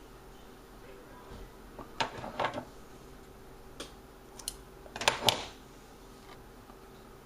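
Hands handling coffee-filter paper and small tools: two short clusters of clicks and rustles, about two and five seconds in, over a faint steady hum.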